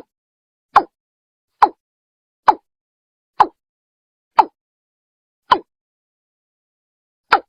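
Watercock (Gallicrex cinerea) calling. It is a recorded lure call: a series of short, clipped notes about one a second, with the gaps lengthening toward the end.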